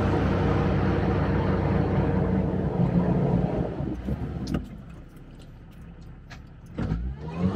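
Sherp amphibious ATV's engine running steadily under power, easing off about halfway through and revving up again near the end, with a couple of sharp knocks.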